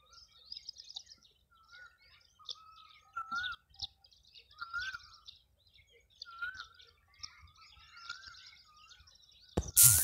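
Several birds calling, one repeating a short whistled phrase every second or two among higher chirps. A loud thump near the end.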